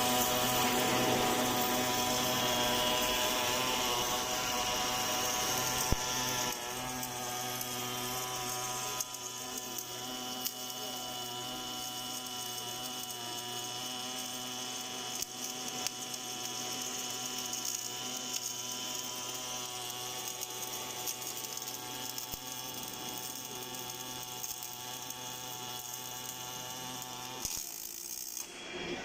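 Automatic circumferential welding machine for hydraulic cylinders running: a steady machine hum with a high whine and faint ticking, stepping quieter about six and nine seconds in and cutting out near the end.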